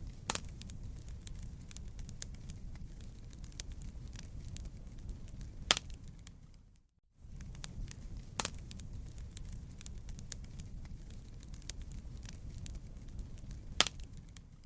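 Wood fire crackling in a fireplace: a steady low rumble of flames with many small crackles and a few sharp, louder pops. The sound briefly drops out to silence about seven seconds in, then resumes.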